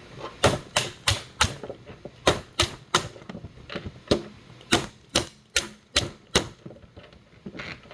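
Stanley tape measure used as a hammer, tapping parts into holes in a 3D-printed plastic case: sharp knocks in quick clusters of two to five, about three a second, roughly fifteen strikes in all.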